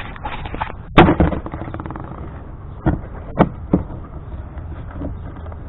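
Knocks and clatter from handling the plastic kayak and its fittings: one loud knock about a second in with a brief rattle after it, then three sharper knocks a little past three seconds in.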